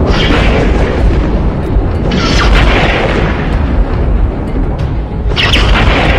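Dramatic background music over a deep, continuous rumble, with swells of rushing noise near the start, at about two seconds and again after five seconds.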